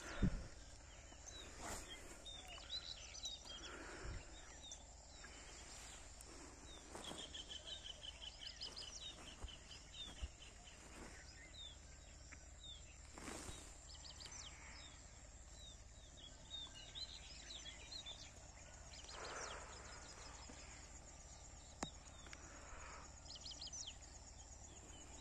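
Birds chirping and trilling with many short high calls, including a rapid run of repeated notes, over a steady faint high hiss. A single loud thump comes just after the start, and a brief rush of noise about halfway.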